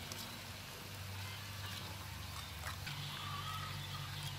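Metal spoon stirring ground spices and water in a terracotta bowl, with faint scrapes and clicks against the clay, over a steady low background hum.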